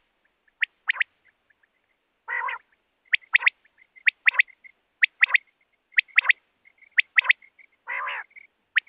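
Common quail (batair) calling: a sharp three-note whistled call repeated about once a second, with two short, lower buzzy calls, one about two seconds in and one near the end.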